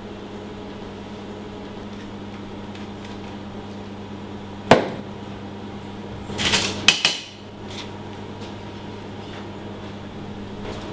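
Steady electrical hum of kitchen equipment, with a single sharp click a little under halfway and a brief clatter of metal utensils on a steel tray about two-thirds in.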